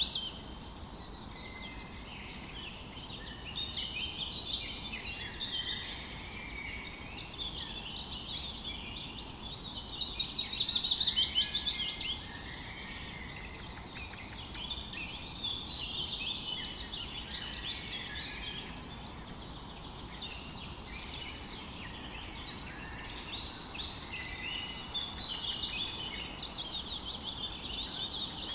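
Dawn chorus of several songbirds singing at once, overlapping chirps and rapid trills, louder for a couple of seconds around ten seconds in and again near the end, over a faint steady background hum.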